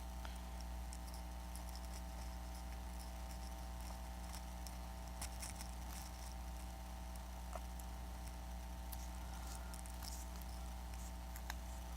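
Steady low electrical hum with scattered faint clicks and light taps of hands handling the iPad.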